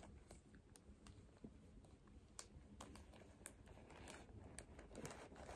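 Near silence, with faint scattered light ticks and crinkles from a plastic-sleeved sheet of window clings being handled.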